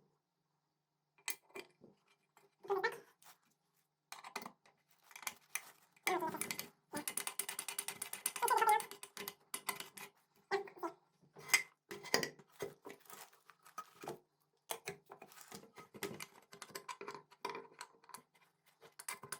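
Scattered metal clicks and clinks of kick-start parts (gears, spring and shaft) being handled and fitted on a scooter engine, with a denser stretch of rattling and scraping about seven to nine seconds in.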